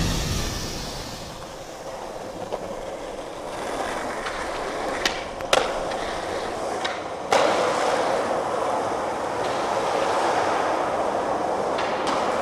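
Skateboard wheels rolling on pavement, with a few sharp clacks of the board about five and seven seconds in; after the last clack the rolling is louder.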